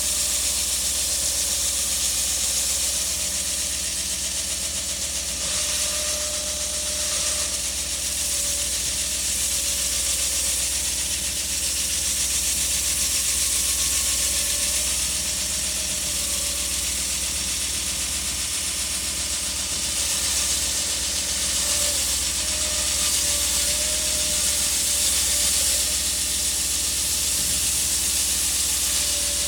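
Concrete saw running steadily through thick concrete: a dense, steady hiss over a low motor hum, with a faint whine that wavers in pitch.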